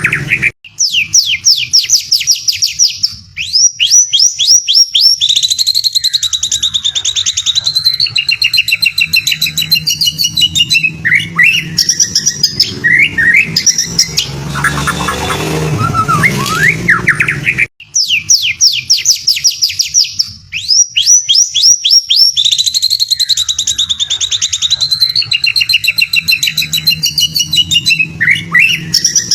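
White-rumped shama (murai batu) singing: fast, high trills and whistled phrases in quick succession. About 18 s in there is a brief break, and then the same run of phrases starts over, as a looped song recording does.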